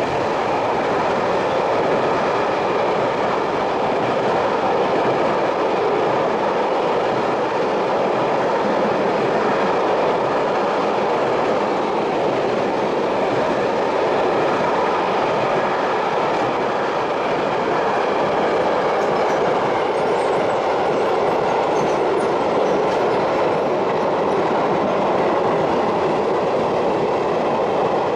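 Freight train wagons, container flats and covered wagons, rolling past at speed: a loud, steady noise of steel wheels running on the rails.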